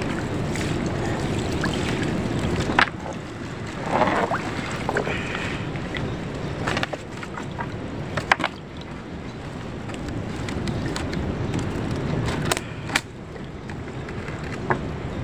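Wet nylon gill net hauled by hand out of river water, with splashing and dripping, over a steady rush of wind on the microphone. A handful of sharp knocks or clicks come through, including two close together near the end.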